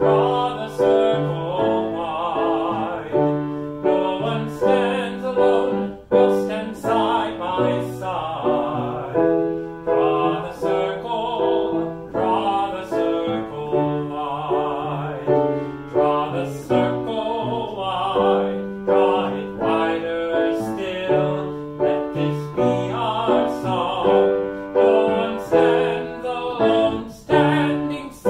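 A man singing a worship anthem with vibrato while accompanying himself on a grand piano.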